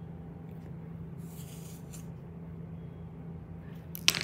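Steady low room hum, with a brief rustle about a second and a half in and a sharp knock near the end as the recording phone is handled and moved.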